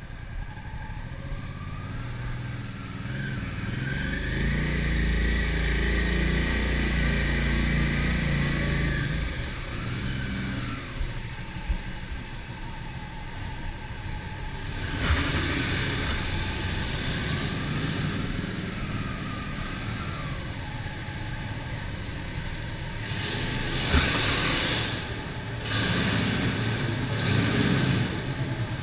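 Motorcycle engine running while being ridden, revving up from about three seconds in and dropping back near nine seconds, with louder rushing noise around the middle and near the end. The bike has a gearbox that is noisy and hard to shift, which the owner puts down to the gear-change return spring.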